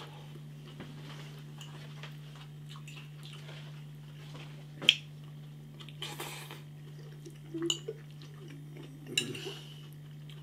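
Cutlery clinking and scraping on a dish of noodles during eating: scattered light knocks and scrapes, the sharpest about five seconds in, with a low steady hum underneath.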